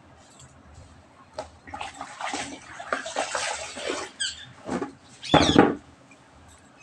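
Water sloshing and splashing in a plastic bucket as a floor-mopping cloth is rinsed in it, with a loud splash about five seconds in.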